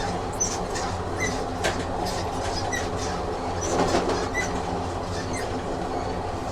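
Train running on rails: a steady low rumble with scattered rail clicks and brief high wheel squeaks.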